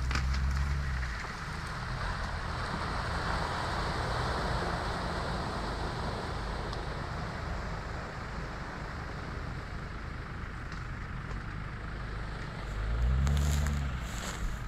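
Jeep Wrangler engine running as it drives off across wet, muddy ground, its sound thinning with distance. Near the end come a few close low thumps and rustles.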